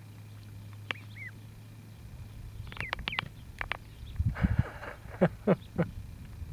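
Ducklings calling: a few scattered short peeps, then a quicker run of calls with some low knocks about four to six seconds in.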